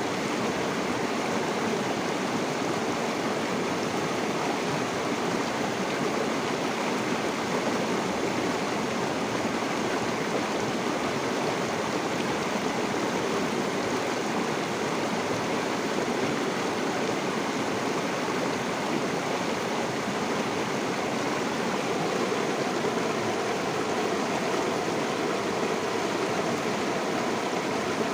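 River water flowing steadily, a constant rushing and gurgling hiss with no pauses or changes.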